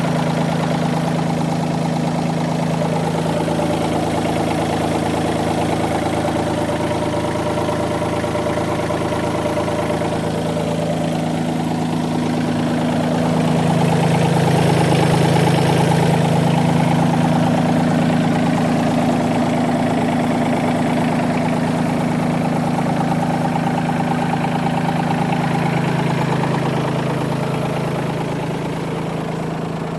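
Bobcat B250 compact loader backhoe engine running steadily, rising in level about halfway through and easing off near the end.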